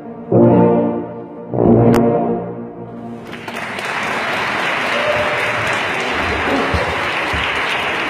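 Tuba playing two short final notes close to the microphone, then applause breaking out about three seconds in and carrying on steadily.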